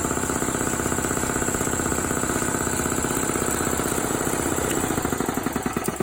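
Machinery running steadily with a rapid, even pulsing beat, easing off slightly near the end.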